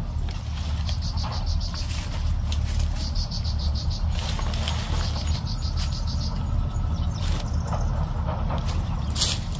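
An insect trilling in evenly pulsed bursts over a steady low outdoor rumble, with scattered crackles of dry leaves and sticks being pushed under a small fire that is catching, the sharpest crackle near the end.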